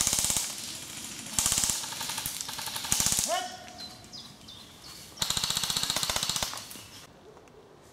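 Airsoft electric rifles firing on full auto: four rapid bursts of quick mechanical clicks, three short ones in the first three seconds and a longer one past the middle.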